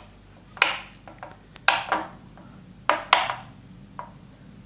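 Plastic two-way (SPDT) wall switches clicking as they are flipped by hand: about six sharp clicks spread over a few seconds, each with a brief ringing tail.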